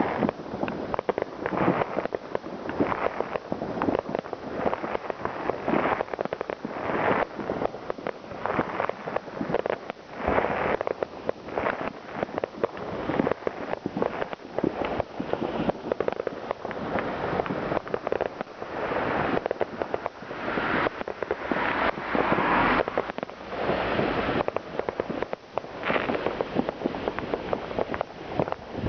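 New Year's Eve fireworks and firecrackers going off in a dense, continuous barrage of overlapping bangs and pops.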